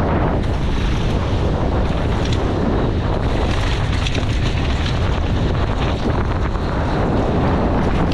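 Heavy wind buffeting the rider's camera microphone on a fast downhill mountain-bike descent, with tyres running over dry, loose gravel and scattered clicks and rattles from the bike.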